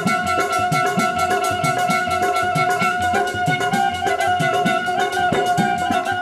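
Punjabi folk music on the algoza, the paired wooden double flute, one held note sounding steadily under a shifting melody, over a fast even rhythm of short strokes.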